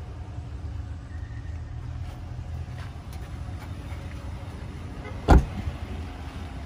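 Rear door of a 2020 Chevrolet Silverado 1500 crew cab shut with a single loud thud about five seconds in, over a steady low rumble.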